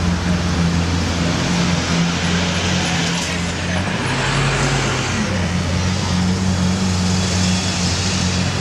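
A motor vehicle engine running steadily amid street traffic, its low hum shifting briefly about halfway through.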